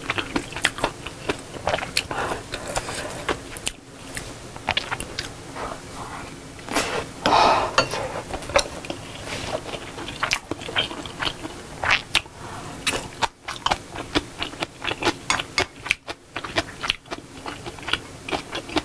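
Close-miked eating of Korean sausage stew and rice: irregular chewing and mouth smacks, with short clicks of a metal spoon and chopsticks against the bowls. About seven seconds in there is one longer, louder noise.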